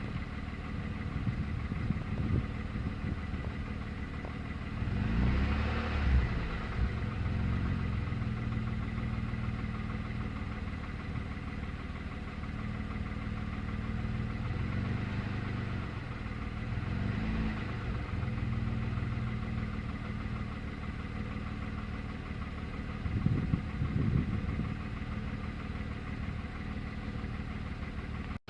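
MG ZS 180's 2.5-litre KV6 engine idling, briefly revved several times with the pitch rising and falling back. The owner is recording it for an engine knock.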